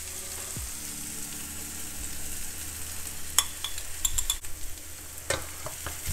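Chopped onion, garlic and chili frying in oil in a pan, a soft steady sizzle, with a few sharp clicks and taps from a metal spoon and glass jar as tomato paste is scooped out and dropped into the pan, mostly in the second half.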